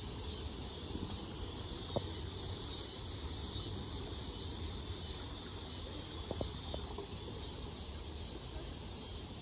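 Faint, steady outdoor ambience of an insect chorus over the wash of a shallow river running over rocks. There is a soft click about two seconds in and a few more later.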